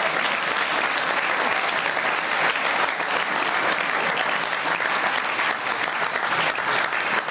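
Studio audience applauding: many people clapping at a steady level.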